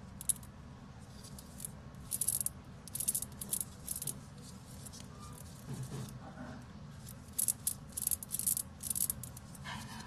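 Cageless high-temperature deep groove ball bearing being turned by hand, its loose steel balls giving a series of short, irregular metallic rattles. The rattle comes from its design, which has no retainer and much larger clearance than an ordinary bearing.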